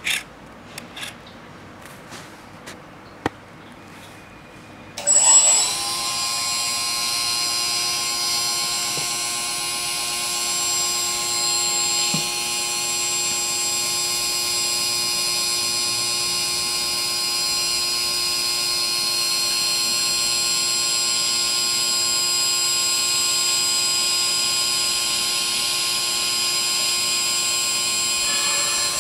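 Small electric hydraulic pump of a 1/14-scale RC tipper truck starting about five seconds in with a brief surge, then whining steadily as the telescopic cylinder lifts the tipper body. A few light clicks come before it starts.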